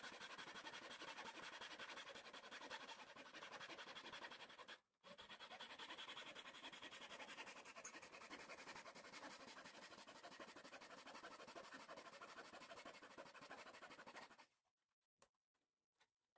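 Fine-toothed hand saw cutting into a thin wooden bulkhead of a model ship's hull frame in quick, continuous strokes, with a brief break just before five seconds. The sawing stops near the end, leaving a few faint clicks.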